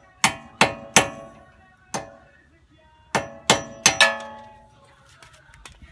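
Claw hammer striking the steel front wheel hub of a 2007 Acura TSX, knocking at a wheel stud. There are four ringing metallic blows, a pause of about a second, then four more.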